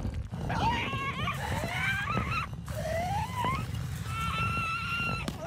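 Wordless squawks and cries from a cartoon bird character, several short bending calls, then a rising cry in the middle and a longer held cry near the end, over a low steady rumble.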